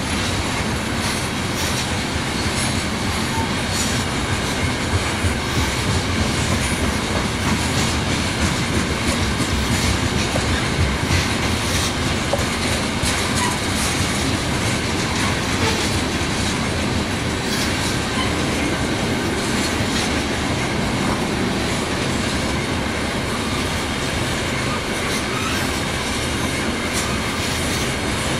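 Freight train cars rolling steadily past, wheels clacking over rail joints with a faint squeal of wheels on rail.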